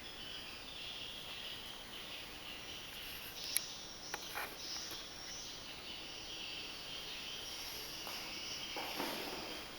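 Steady chirring of crickets or other insects in the background, with a few sharp clicks a few seconds in and a short rustle near the end.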